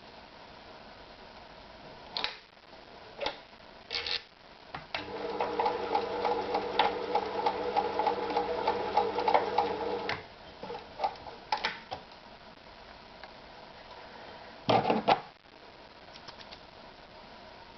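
Privileg Super Automatik TopStar 796 sewing machine running for about five seconds, with a steady motor hum under rapid ticking from the needle mechanism, then stopping. Separate clicks and knocks come before and after the run, with a louder pair of knocks near the end.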